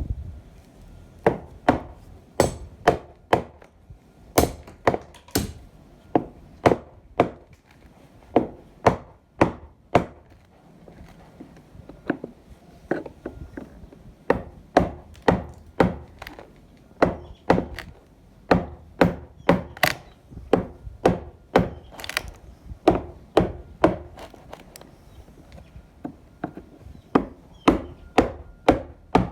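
Repeated hammer blows on wood, sharp strikes about two a second in runs of several, with short pauses between runs.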